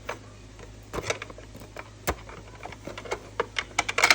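Hard plastic clicks and knocks from a toy vending machine and its small toy drink being handled and loaded, irregular at first, with a quick cluster of louder clicks near the end.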